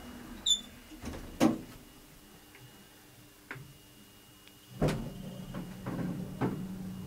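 Oakland passenger lift car and doors: a sharp click, then a loud knock, and a heavier thump a few seconds later, followed by a steady low hum with a few small knocks.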